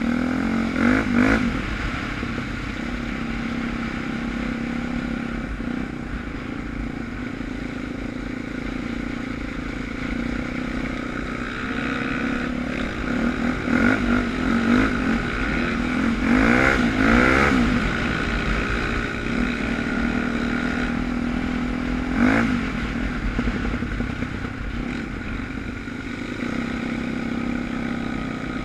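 Suzuki DR350's single-cylinder four-stroke engine running under way off-road, heard from a camera mounted on the bike, its revs rising and falling several times, most strongly around the middle.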